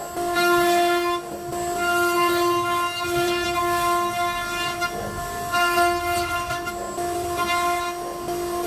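CNC router spindle whining at a steady high pitch as its bit carves a relief pattern into a wooden board. The whine fades and comes back several times.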